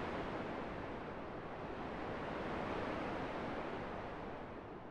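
Steady rush of wind over choppy open water, an even noise without separate splashes.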